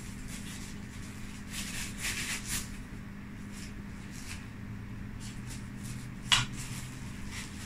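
Thin plastic food-prep glove rustling as it is pulled onto a hand, with one sharp click a little after six seconds in, over a low steady hum.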